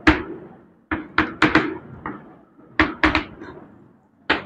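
Chalk knocking against a blackboard while words are written: about nine sharp taps, most of them in quick clusters of two to four, one at the start and one near the end.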